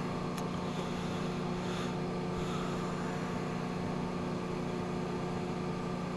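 Steady electric hum of a machine tool running off a rotary phase converter.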